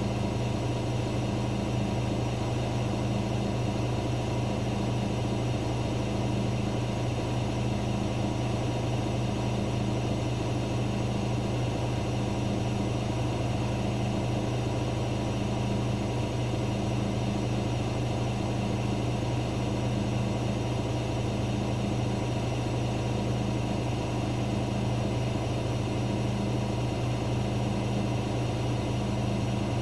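Daewoo DWD-FT1013 washing machine on its 800 rpm spin cycle, the drum spinning at a steady speed. It gives a constant low motor hum with a faint throb about once a second.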